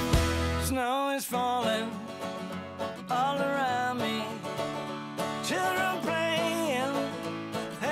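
Background music: a country-style song with a singing voice over plucked strings. It comes in just under a second in, as a bass-heavy track cuts off.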